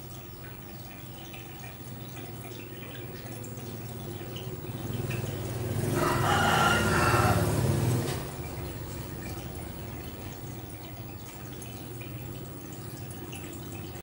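Water dripping and trickling in a goldfish aquarium over a low steady hum. About six seconds in, a loud drawn-out call with several pitched tones rises over it for about two seconds, then stops.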